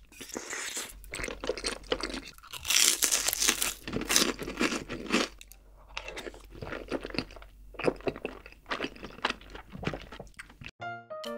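Close-miked eating sounds: glass noodles and chicken in a creamy rose sauce are slurped off a spoon, followed by wet chewing. A light piano tune starts near the end.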